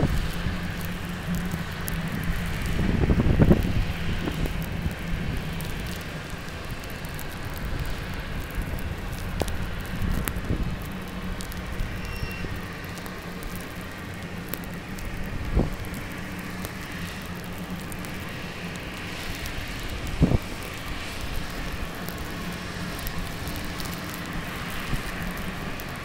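Blizzard wind rushing and buffeting the camera microphone, with heavy low rumbling gusts, the strongest about three to four seconds in. A faint low hum runs underneath, and there are a couple of brief thumps later on.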